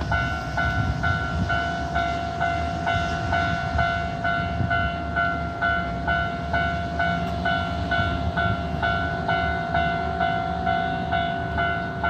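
Japanese railway level-crossing alarm ringing: an electronic two-tone bell repeating steadily at about two and a half strikes a second, the warning that a train is approaching. Low rumbling noise lies underneath.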